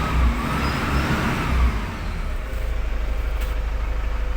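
Toyota 1KD-FTV four-cylinder turbodiesel engine, freshly overhauled, running: a light rev that rises and falls over the first two seconds, then settling into an even idle.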